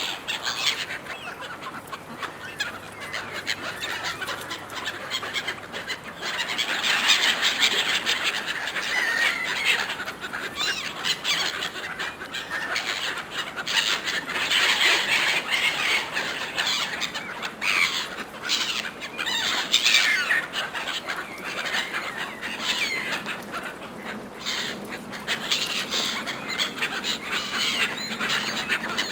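A flock of gulls squabbling over food: many overlapping squealing calls at once, with no break, busiest near the middle.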